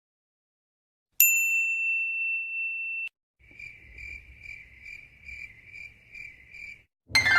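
A steady, high-pitched electronic beep that starts sharply and cuts off suddenly after about two seconds, followed by a cricket-chirping sound effect at about two to three chirps a second over a faint hum. The crickets are the stock 'awkward silence' effect.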